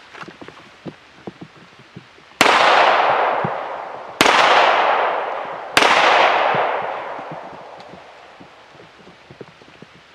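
Three shots from an FN FNX-45 Tactical .45 ACP pistol, about a second and a half to two seconds apart. Each shot trails off in a long echo.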